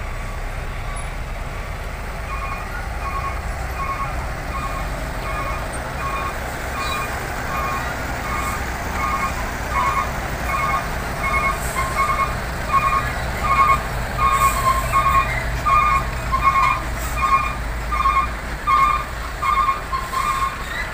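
Heavy vehicles' engines running low under an electronic warning beeper that repeats at an even rate, starting about two seconds in and growing louder in the second half.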